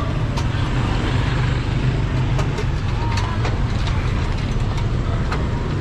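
Busy street traffic: a steady low rumble of vehicle engines, with scattered small clicks and knocks.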